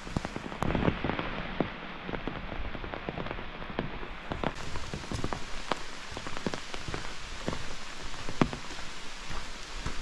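Rain falling, with single drops striking close by as irregular sharp ticks over a steady hiss.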